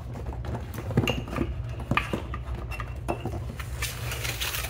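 Handling noise from a Ryobi electric mower's heavy-duty battery charger, a finned metal case with cords, being lifted out of its cardboard box: scattered knocks and clinks, then a rustle near the end.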